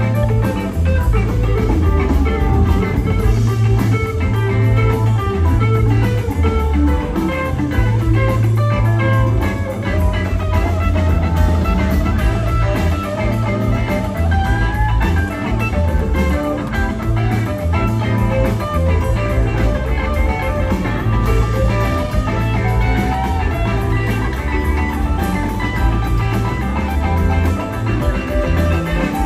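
Live rock band playing an instrumental passage: an electric guitar lead with bent notes over bass and drums.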